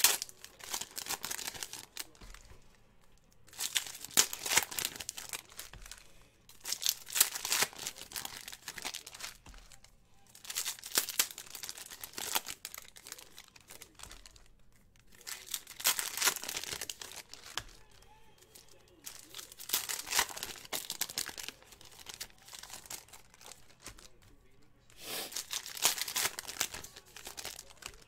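Foil trading-card pack wrappers crinkling and tearing as football card packs are ripped open by hand, with cards handled and set down on the table. It comes in bursts of a few seconds with short pauses between.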